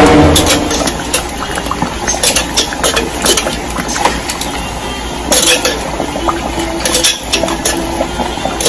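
A metal spoon stirring a thick, simmering coconut-milk and pork stew in a pan, with irregular clinks and scrapes against the pan, busiest about five and seven seconds in. A steady low hum runs underneath.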